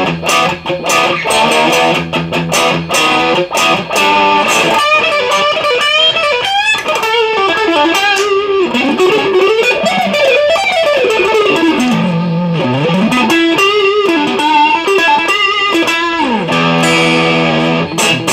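Fender Masterbuilt NOS Stratocaster electric guitar being played clean. The first few seconds are rhythmic strummed chords. After that comes a lead line with slides and bends, and near the end a held chord that rings.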